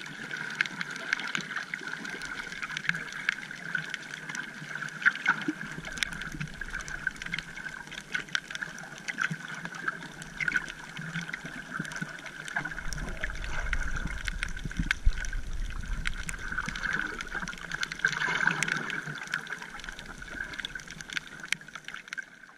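Underwater sea ambience: a dense crackle of sharp clicks over a steady hum, with a deeper rumble for several seconds in the middle.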